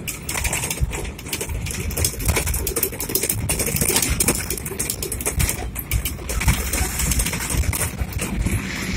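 Continuous rattling and knocking inside a vehicle driving over a rough gravel road, over a low rumble of engine and tyres.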